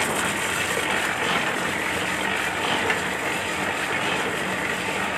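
Motor-driven mustard oil press (expeller mill) running steadily, a continuous mechanical hum and rumble of the machine grinding mustard seed.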